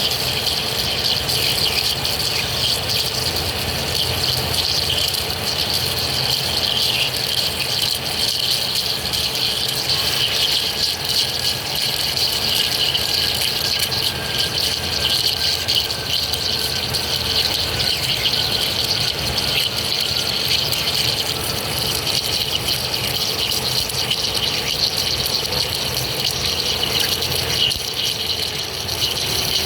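Metal lathe cutting steel: the machine runs steadily with a continuous hiss from the cut, and a faint whine slowly drops in pitch through the middle.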